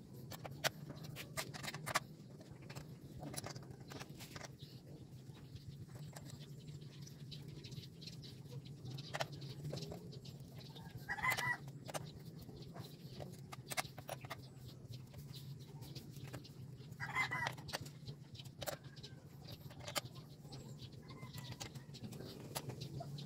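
Light scattered clicks and taps of a metal screwdriver working on a scooter's in-tank fuel pump assembly, over a low steady hum. A bird calls twice, about eleven and seventeen seconds in.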